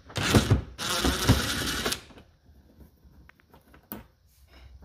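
A cordless power driver running in two bursts, a short one and then a longer one of just over a second, backing out a bumper mounting screw. Faint clicks of the screw being handled follow.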